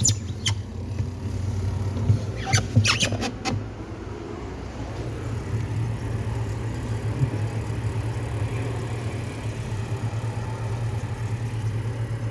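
Samsung inverter fridge compressor running with a steady low hum while the system is being charged with R134a refrigerant. A few sharp clicks and knocks come in the first few seconds.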